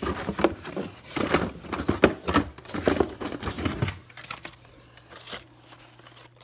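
Hot Wheels blister-pack cards being handled and shuffled: a dense run of plastic and cardboard crinkling and clacking for about four seconds, then quieter, sparser rustling near the end.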